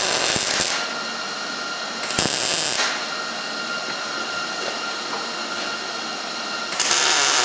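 MIG welder arc crackling in three short bursts as tack welds are laid on a steel exhaust pipe: one under a second long at the start, another about two seconds in, and a third starting near the end.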